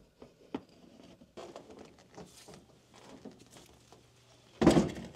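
Faint handling and rustling with a few light clicks, then one loud knock about four and a half seconds in.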